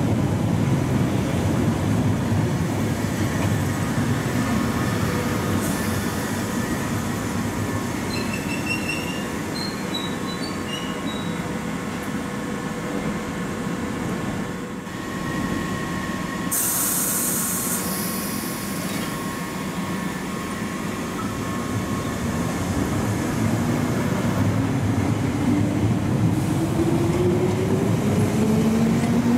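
London Underground Piccadilly line train (1973 stock) running through the station, its wheels rumbling on the rails with a steady whine over the top. A short loud hiss of air cuts in a little past halfway. Near the end the motor whine rises steadily in pitch as a train pulls away.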